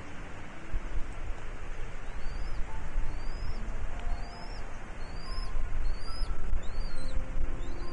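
A bird giving short, high, rising-then-falling chirps in a steady series about once a second, over a steady low rumble.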